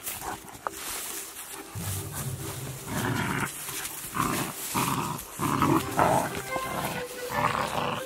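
A Great Pyrenees and a young Catahoula hound puppy play-fighting, with a run of short growls from about two seconds in.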